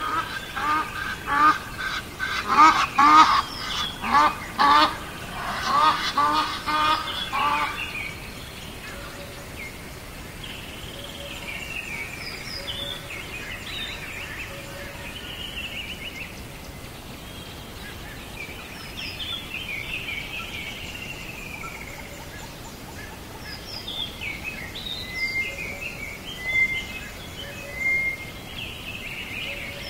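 Birds calling: a loud run of repeated calls, about two a second, in the first eight seconds, then scattered higher chirps and short whistles from smaller birds over a steady background hiss.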